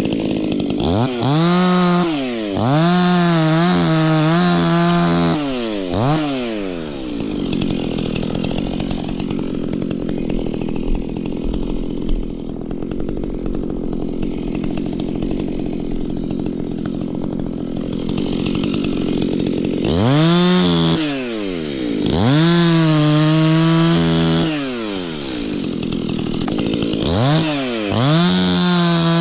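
Stihl two-stroke chainsaw revving up and down in repeated surges, with a steadier, lower-pitched stretch of running in the middle.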